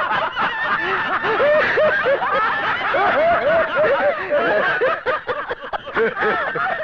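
A group of men laughing heartily together, many quick overlapping laughs.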